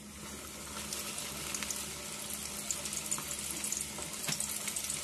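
Flour-coated chicken thigh cutlet sizzling in hot oil, a steady hiss with many small crackling pops, swelling over the first second as it goes into the oil.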